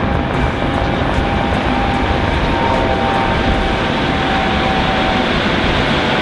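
Steady loud rushing noise, heaviest in the low end, with a faint held tone near 1 kHz running through it.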